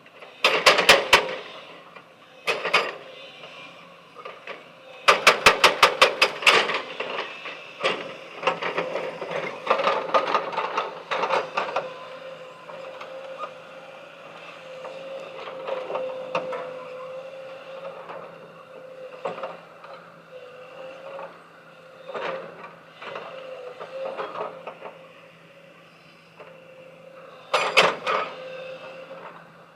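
Heavy machinery working stone: a steady engine hum broken by several short bursts of rapid, evenly spaced sharp impacts, about five a second.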